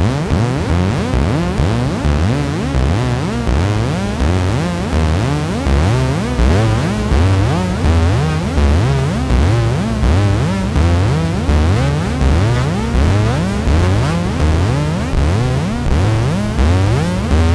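Arturia MiniBrute analogue synthesizer playing a repeating low pattern, the notes pulsing a little more than once a second, each with a rising sweep of the filter, run through a delay pedal.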